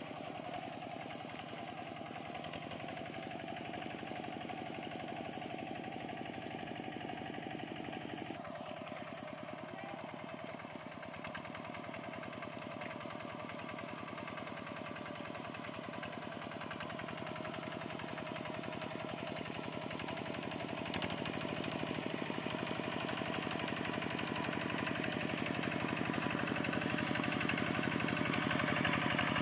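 Two-wheel walking tractor's single-cylinder engine running with a fast, even beat, growing louder over the second half as it comes closer.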